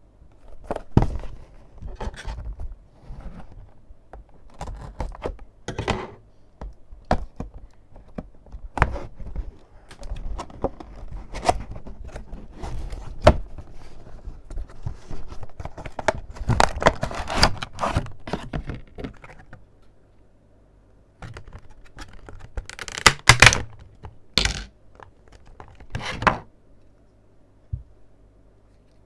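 Packaging of a boxed toy figure being handled and opened by hand: irregular knocks and thunks, with tearing and crinkling. The handling is busiest about halfway through and again near two-thirds of the way, then thins out to a few taps.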